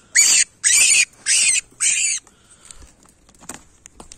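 European rabbit caught in a wire cage trap, screaming in distress: four loud, high shrieks in quick succession that stop about two seconds in. A few faint knocks follow.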